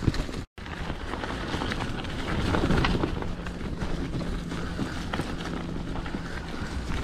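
Mountain bike riding over a dirt trail: tyres rolling with scattered clicks and knocks from the bike, and wind on the microphone. A steady low hum joins about two and a half seconds in.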